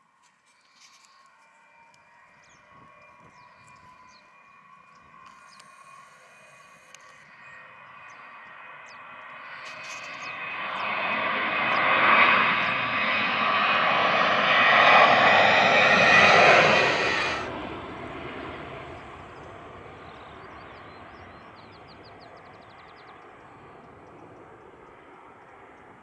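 Airliner's jet engines passing low: a whine rising in pitch and growing louder to a peak, then the high part cutting off suddenly and the remaining engine noise fading away.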